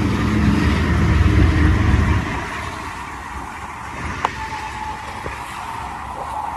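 Diesel freight locomotive passing close by with a heavy low engine rumble that falls away about two seconds in. Loaded tank cars follow, rolling steadily on the rails, with a sharp clank from the wheels about four seconds in.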